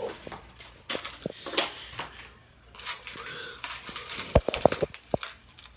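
Close handling noise: rustling, then a quick run of clicks and knocks a little after four seconds in.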